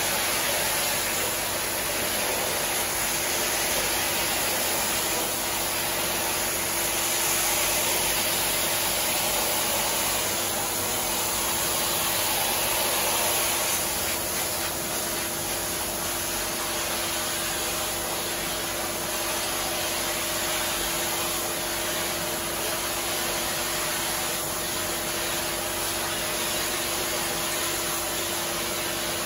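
Pressure washer wand spraying a shaggy rug: a steady hiss of high-pressure water hitting the pile, with a faint steady hum underneath.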